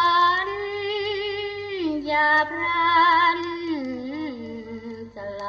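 Music from an old Thai popular-song record: a melody of long held notes with a slow wobble, stepping down in pitch about two seconds in and again near four seconds.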